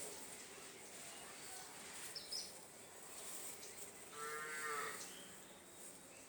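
One drawn-out animal call, a single held note lasting just under a second, about four seconds in. A short click comes earlier, over a faint background.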